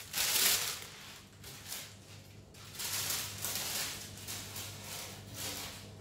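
A sheet of baking paper rustling and crinkling in irregular bursts as it is handled and laid over a cake tin inside an oven, over a low steady hum.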